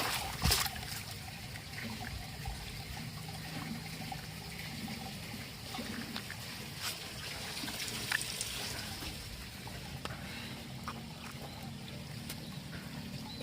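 Water trickling and dribbling, with a few light knocks, as toy vehicles are washed.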